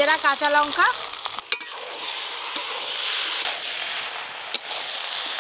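Spices tempering in hot oil in a kadai of cabbage-and-potato curry, a steady sizzle, while a spatula stirs the curry and clicks a few times against the pan. In the first second a few short, pitched, rising notes sound over it, louder than the sizzle.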